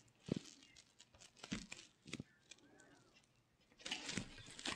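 Faint handling sounds of fabric and sewing tools on a cutting table: a few light taps as the measuring tape is handled and set down, then a short stretch of cloth rustling near the end.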